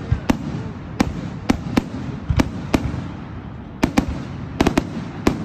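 Fireworks going off: an irregular string of about a dozen sharp bangs and pops, some in quick clusters, over a steady low background noise.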